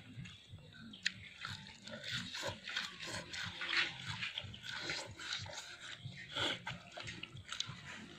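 Close-up eating sounds: wet chewing, slurping and lip smacks, with many small irregular clicks, as a man eats boiled snails, herbs and rice.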